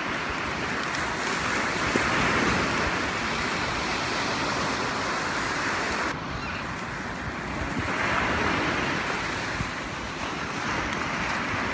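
Sea surf breaking and washing up a sandy beach, a steady rush that swells and eases every few seconds, with some wind on the microphone.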